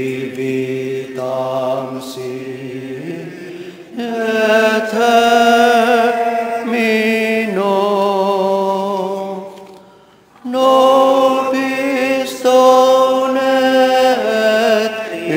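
Voices singing a slow, chant-like hymn, holding long notes that change every few seconds, with a brief pause for breath about ten seconds in.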